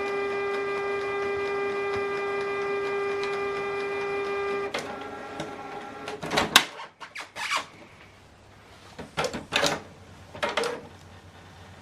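Canon Pixma MG3600 inkjet printer's motor running with a steady whirring hum for about five seconds as it powers up and moves the ink cartridge holder into position, then stopping. A few short clicks and knocks follow.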